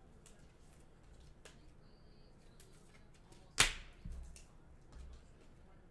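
Trading cards dealt onto stacks on a table: faint card clicks, then one sharp slap about three and a half seconds in, followed by two softer taps.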